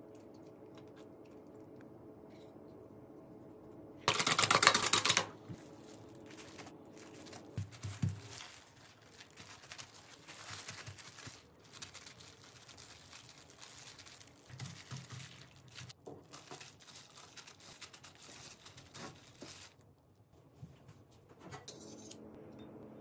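Hands-on food preparation sounds: soft rustling of a plastic glove and light taps and clicks as fish is handled and dredged in flour, with one loud noisy crinkling burst about four seconds in that lasts about a second. A low steady hum sits under the first several seconds.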